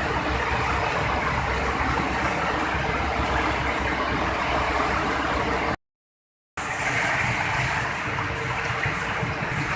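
Palm oil mill shell-and-kernel separating machinery running with a steady, dense mechanical din and a faint steady hum. The sound drops out completely for under a second about six seconds in, then resumes unchanged.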